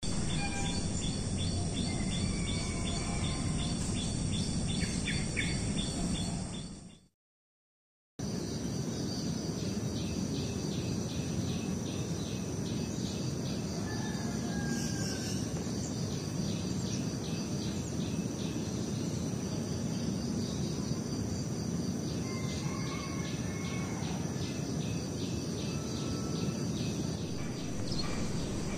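Outdoor ambience of insects chirping steadily in a repeating pulse, with a few short bird chirps over a low background rumble. The sound cuts out completely for about a second some seven seconds in, then resumes.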